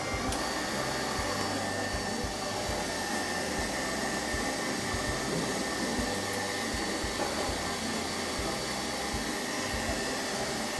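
Commercial stand mixer's motor running steadily, beating batter in its steel bowl.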